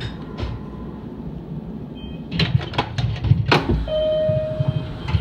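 A run of sharp knocks and rubbing from the camera being handled close to the microphone, over the low hum of a stopped train. Near the end a steady electronic beep sounds for about a second.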